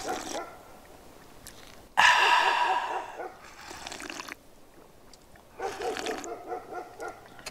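Slurping a hot drink from a steel thermos cup: a loud slurp starting about two seconds in and lasting a couple of seconds, then a fainter sip near the end.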